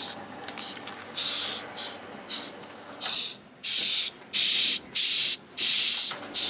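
A male Madagascar hissing cockroach hissing when it is picked up by hand: a quick series of short hisses, each about half a second long, that grow much louder about halfway through.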